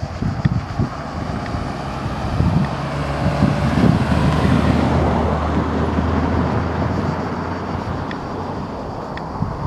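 A car driving past, growing louder to a peak about four to five seconds in and then fading away, with wind buffeting the microphone.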